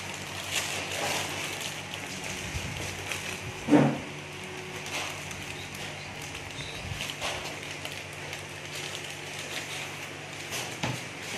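Handling of plastic bags and a knife while ripe kepok bananas are peeled by hand: scattered crinkles and scrapes, with one louder knock about four seconds in, over a steady low hum.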